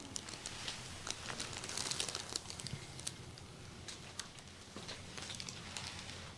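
Faint rustling and crinkling with scattered small clicks, the sound of fabric or a covering being handled and shifted about, busiest around two seconds in.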